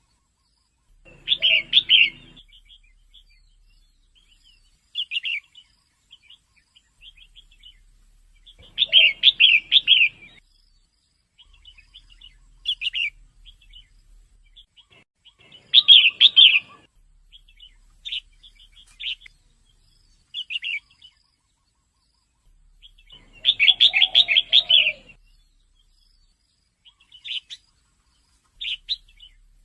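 Female red-whiskered bulbul calling: quick chirping phrases, louder ones about every seven or eight seconds, with softer short calls in between.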